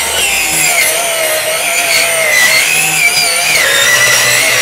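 Masaki cordless brushless circular saw with a 125 mm alloy blade making a 45° bevel cut through a wooden board: a steady high motor and blade whine whose pitch wavers and dips slightly as the blade works through the wood.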